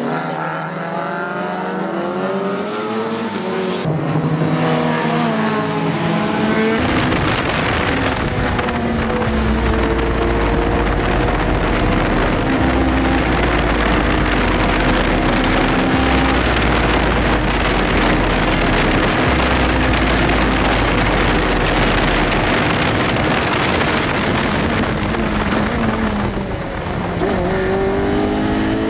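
Onboard sound of a Juno SSE CN LMP-CN sports prototype's Honda 2.0-litre racing engine pulling hard, its pitch climbing and dropping back at each quick upshift of the six-speed sequential gearbox over the first several seconds. Then a long flat-out stretch of steady engine and heavy wind noise, a brief lift near the end, and the engine pulling up through the revs again.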